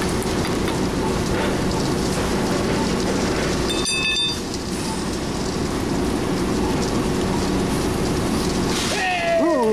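IMER Koine 35 continuous pump-mixer running steadily, a rough mechanical noise with a low electric hum. A brief high beep about four seconds in, and a short voice-like call near the end.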